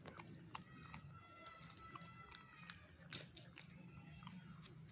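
A puppy chewing a fresh pea pod: faint, irregular crunching clicks.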